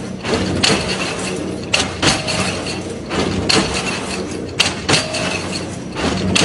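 Hexagonal wire-mesh weaving machine running, a steady mechanical clatter with a low hum and sharp metallic knocks roughly once a second.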